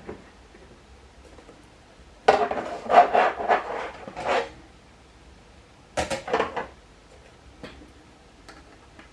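Hard frame pieces of a jigsaw puzzle easel clattering and knocking together as they are handled and fitted during assembly: a burst of knocks lasting about two seconds, then a shorter one, then a few faint ticks.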